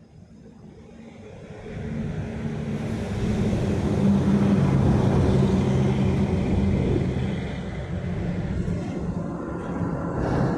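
Vehicle crossing a road bridge overhead: a deep rumble that builds over the first couple of seconds and stays loud, with a low steady engine hum, easing a little near the end.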